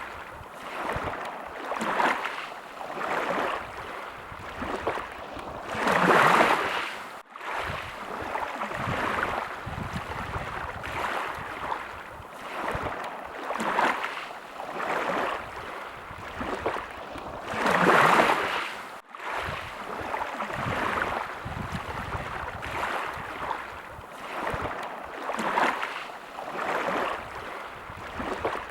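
Small sea waves washing in, one swell every second or two, with two larger waves breaking about six seconds in and again past the middle.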